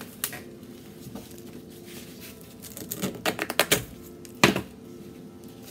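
Hand-press donut bath bomb mold clicking and knocking as its halves are fitted together and pressed by hand over powder, with a cluster of clicks about three seconds in and one sharp knock about four and a half seconds in. Before that, soft scraping as powder is gathered on paper.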